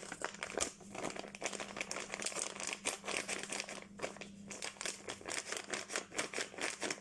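Plastic packet of Korean powdered mix crinkling and rustling in the hands as it is turned and handled, a dense, irregular crackle.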